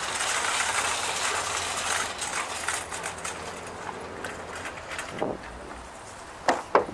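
Vehicle noise: a car's hiss fades away over the first few seconds over the low hum of an engine idling, then two sharp knocks come close together near the end.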